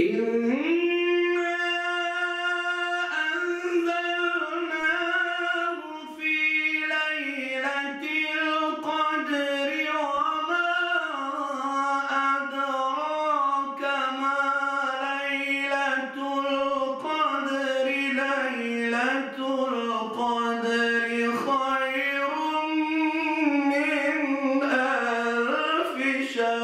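Solo male voice in melodic Quran recitation (tajwid), drawing out long ornamented phrases with the pitch gliding, wavering and held, with a brief break about six seconds in.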